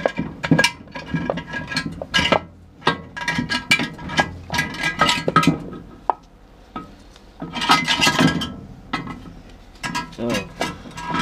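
Steel clutch and gear parts of a Ford AOD automatic transmission clinking and ringing against each other as the output shaft and direct clutch are worked loose inside the case, in a string of sharp metallic clinks with a louder cluster about eight seconds in.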